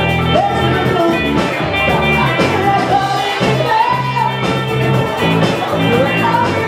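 Live rock band playing: a lead singer over electric guitars and a drum kit.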